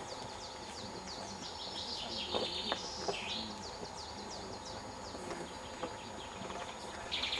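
Wild birds singing: many quick, high chirps and trills, busiest in the first few seconds and again later, over a faint steady outdoor hiss, with a few faint knocks near the middle.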